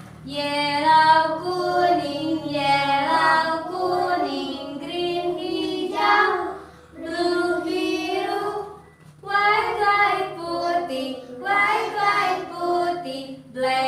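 A woman and young children singing a simple song together in short phrases, with brief breaks between lines.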